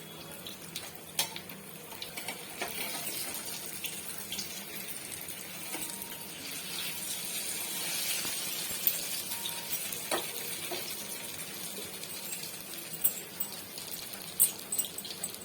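Pieces of rikwach (colocasia-leaf rolls) sizzling as they shallow-fry in hot mustard oil: a steady hiss, with a few sharp clicks through it.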